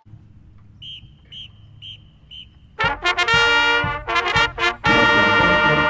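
Four short, evenly spaced high beeps count off the start, then the marching band's brass section comes in loud about three seconds in with a string of short stabbed chords, ending on a long held chord.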